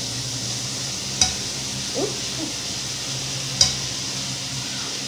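Butter melting and sizzling in a skillet with a steady hiss, broken twice by a sharp click.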